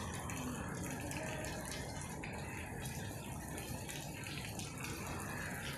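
Steady sound of water over a rain-flooded street, an even wash of noise with no distinct single events.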